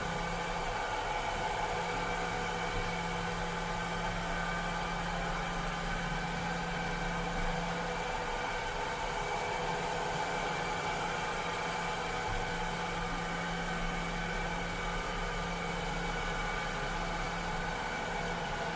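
A cleaning robot's motor running steadily: a continuous, even whirring hum with no change in pitch or level.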